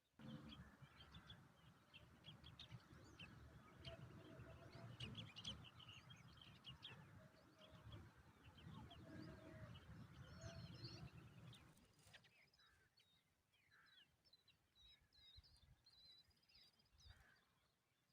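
Common tailorbird nestlings chirping faintly with short, high peeps, heard throughout. For the first twelve seconds a low rustling rumble lies under them and then cuts off suddenly.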